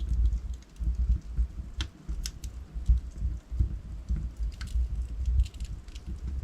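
Wood fire burning in a fireplace, with irregular sharp crackles and pops from the logs over a low, fluctuating rumble of the flames.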